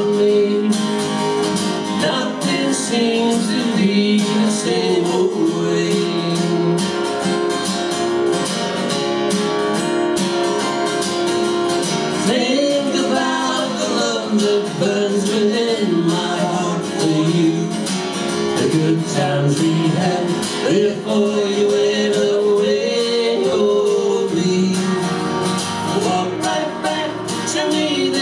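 Two men singing together in harmony over two strummed acoustic guitars.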